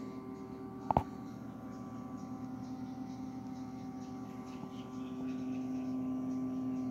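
Steady electrical hum made of several held tones, with a single sharp click about a second in; the hum grows slightly louder near the end.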